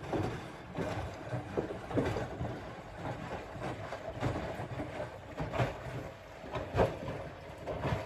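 Bosch Serie 4 front-loading washing machine in its rinse cycle: water and laundry sloshing and splashing in uneven surges as the drum tumbles, with one louder splash about seven seconds in.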